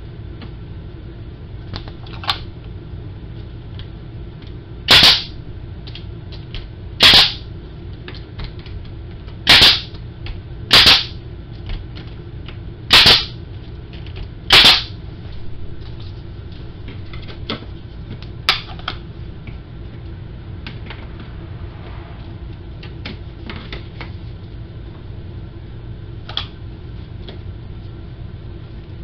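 Pneumatic brad nailer firing brads to fasten interior window trim: about six loud sharp shots one to two and a half seconds apart, with a few fainter clicks around them.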